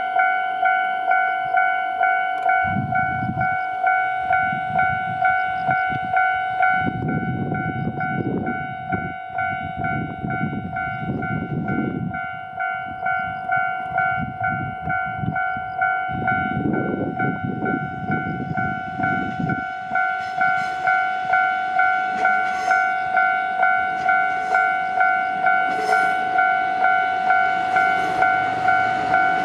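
Japanese level-crossing alarm bell ringing over and over at an even pace of about two dings a second. A low rumble rises and fades under it several times in the first two-thirds.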